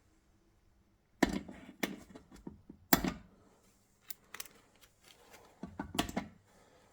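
Small carburettor screws being lifted out with a magnet and handled, giving a scattered series of sharp clicks and taps. The loudest come about a second and about three seconds in, with a quick cluster near the end.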